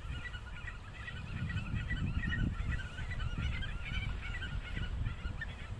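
Several birds screaming together in a dense, unbroken chatter of short harsh call notes. Low wind rumble on the microphone underneath.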